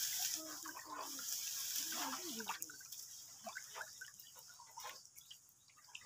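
A hand stirring and sloshing a thin goat-feed mash of rice starch water and bran in a large metal basin, with small splashes and drips, quieter near the end.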